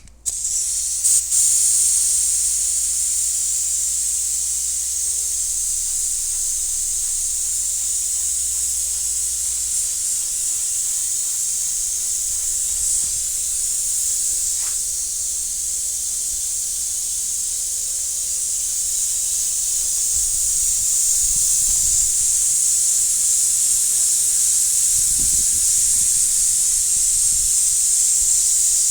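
Automotive paint spray gun spraying pearl coat onto a car panel: a steady, high hiss of compressed air atomising the paint.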